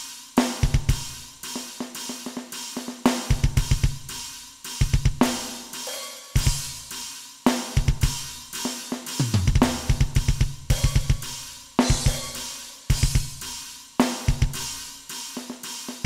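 Metal drumming on an Alesis Nitro Mesh electronic kit triggering custom sampled drum sounds: fast runs of kick drum hits in stop-start groups, under snare hits and crash cymbal accents.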